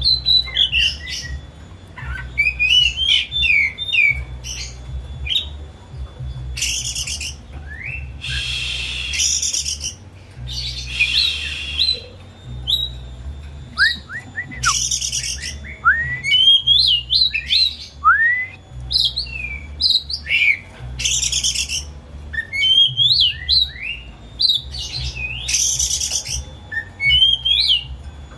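Oriental magpie-robin (kacer) singing continuously and excitedly: rapid varied whistled phrases interspersed with harsh, rasping bursts every few seconds.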